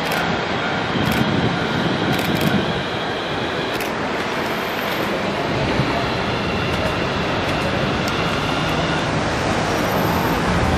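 Fukui Railway F1000 "FUKURAM" low-floor articulated tram running past close by, a steady rolling noise with a faint high whine through the middle.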